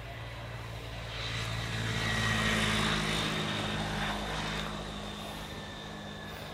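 A steady low engine drone, with a rushing noise that swells for about three seconds and then fades.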